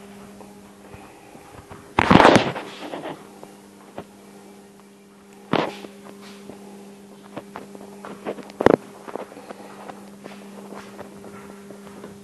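Sharp knocks and bangs, the loudest about two seconds in and ringing on briefly, two more a little after five seconds and near nine seconds, with scattered light clicks over a steady low hum.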